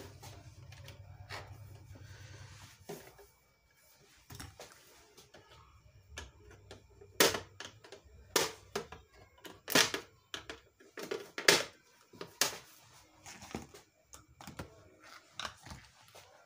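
Screwdriver and hands working on the hard plastic housing of a Janome Secio sewing machine, refitting the cover screws: a string of sharp clicks and knocks, loudest and most frequent between about seven and thirteen seconds in. A low hum stops about three seconds in.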